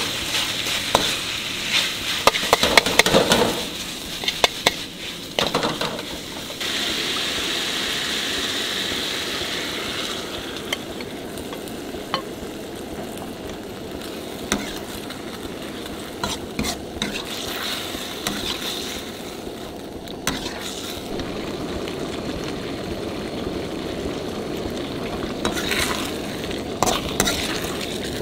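Yu-xiang shredded pork stir-frying in a hot pan: a steady sizzle, with a spatula scraping and clicking against the pan in bursts.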